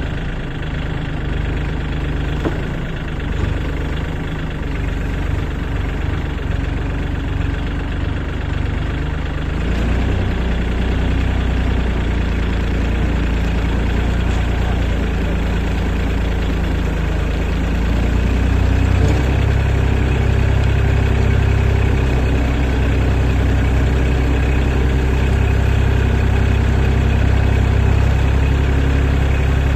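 Kubota tractor's diesel engine running steadily while driving. It grows louder about a third of the way in and again a little past halfway.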